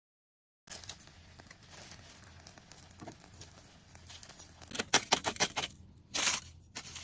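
After a moment of dead silence, faint crackling from charcoal embers. From about five seconds in come sharp clicks of metal tongs and the crinkle of aluminium foil as a foil-wrapped parcel is lifted out of the embers.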